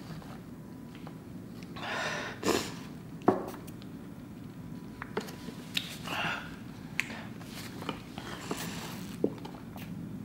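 A woman sniffling and breathing hard in a few short bursts, about two, six and nine seconds in, between sips through a straw from a small drink carton, with small clicks and rustles in between. Her mouth and throat are burning from extremely spicy noodles.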